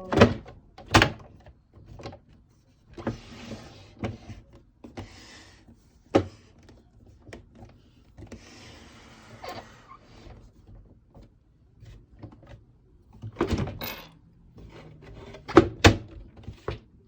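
Plastic knocks, clicks and scraping from a Brother sewing machine's housing being fitted back together. There are sharp knocks about a second in, around six seconds, and a cluster near the end, with softer rubbing between them.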